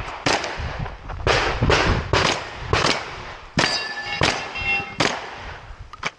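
Handgun shots fired in a quick string during a practical-shooting stage, about ten sharp reports at uneven spacing of roughly half a second to a second. Brief ringing tones follow a couple of the shots in the middle.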